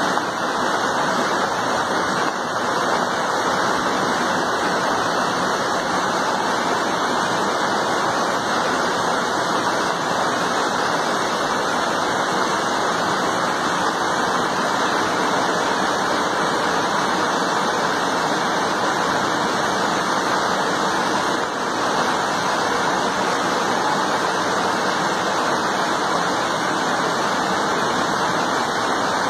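Floodwater torrent rushing down a narrow alley, a steady, unbroken rushing of fast muddy runoff from a heavy downpour.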